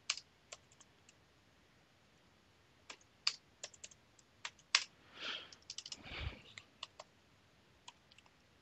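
Computer keyboard typing: scattered key clicks, a few at first and quicker bursts in the second half. Two brief soft whooshes come just past the middle.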